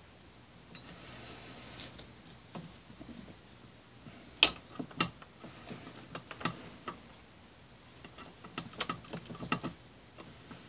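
Scattered light clicks and clinks of small metal parts being handled and fitted at the top of a motorcycle engine's cylinder block. Two sharper clicks come about four and a half and five seconds in, and a quick run of clicks comes near the end.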